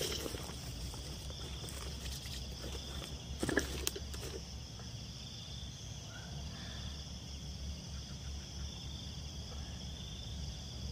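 Night insects, crickets among them, trilling steadily, with a brief rustle about three and a half seconds in.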